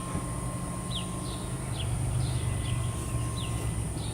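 A bird calling with short, falling chirps about twice a second, over a steady low rumble.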